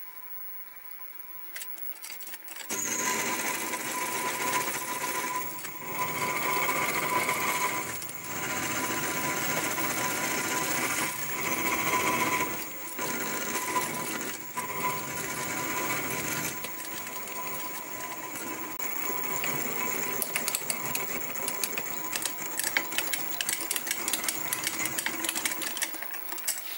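Sieg SX2P mini mill's end mill facing a small casting. The machine starts about three seconds in and runs with a steady high whine and the hiss of the cut, dipping briefly several times.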